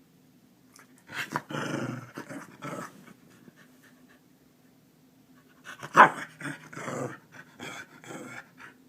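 A Keeshond vocalizing to wake its owner, in two spells: one about a second in and another from about six seconds, with the loudest sharp sound near six seconds.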